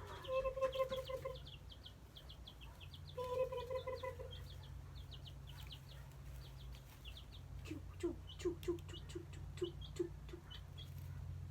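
Baby chicks peeping: many short, high peeps that each fall in pitch, with two longer, lower calls in the first few seconds and a quick run of low short notes about two-thirds of the way through, over a steady low hum.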